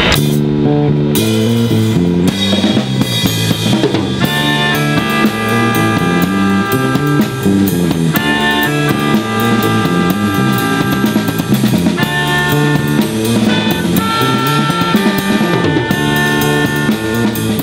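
Instrumental rock music: a drum kit keeps a steady beat under a bass line that steps from note to note, with a higher melodic line above.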